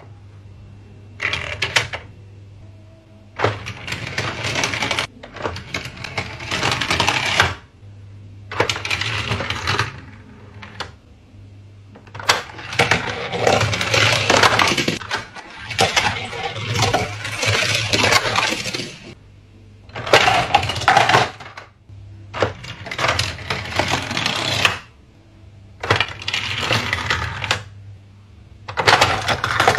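Die-cast toy cars and hard plastic track pieces clattering and rattling in repeated bursts of a second or two, with short pauses between, over a low steady hum.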